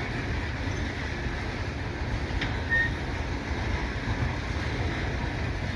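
Coal train rolling by: a steady low rumble, with a single faint click about two and a half seconds in.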